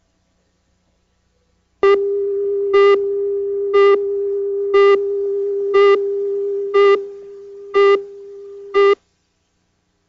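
Broadcast tape slate tone: a steady electronic tone with a short beep on top of it once a second, eight beeps in all. The steady tone drops quieter near the end while the beeps stay loud, and it all cuts off sharply.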